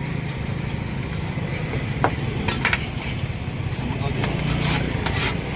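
Scattered light clinks and knocks of metal utensils at a street food stall, over a steady low hum.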